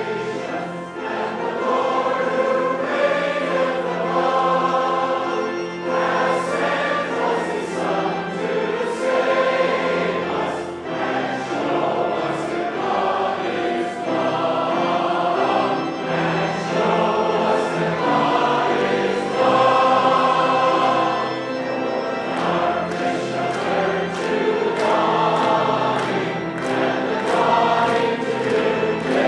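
Church choir singing a sacred piece in several parts, with sustained notes that change pitch together.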